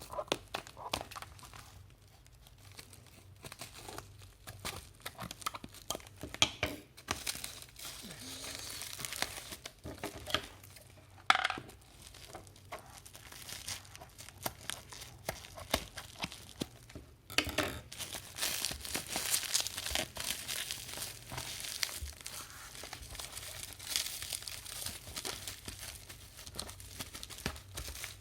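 Packaging being opened by hand: plastic and paper crinkling and rustling, with tearing and scattered small clicks, busier and louder through the second half.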